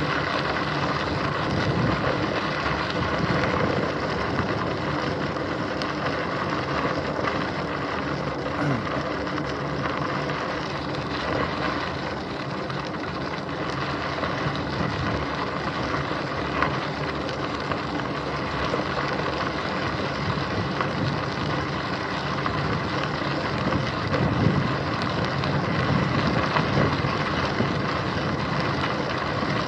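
Bicycle rolling along a dirt and gravel path, heard from a camera mounted on the handlebar stem: steady tyre and wind noise with the bike and mount vibrating over the surface, and a few sharper knocks from bumps near the end.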